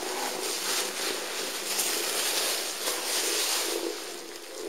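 Thin plastic bag crackling and rustling as a cat pushes into it, loudest in the middle of the stretch.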